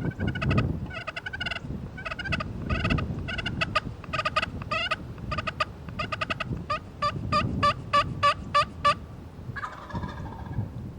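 Loud, close turkey calling: several fast bursts of rapid cutting notes, then a run of about a dozen evenly spaced yelps, about three a second, ending about nine seconds in.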